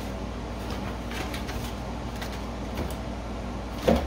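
Light handling of a UV nail lamp's packaging on a table over a steady low hum, with one short thump near the end as something is set down.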